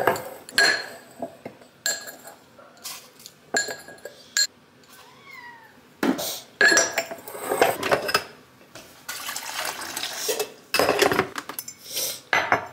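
A ceramic mug and kitchenware knocking and clinking on a granite countertop and a coffee machine's drip grate while coffee is made, a string of sharp clatters with short busier stretches of handling.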